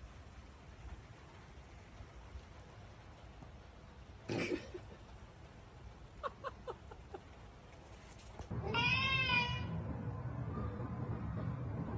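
A cat's long, loud meow, rising then falling in pitch, about two-thirds of the way in. It comes after a few short, faint squeaky calls.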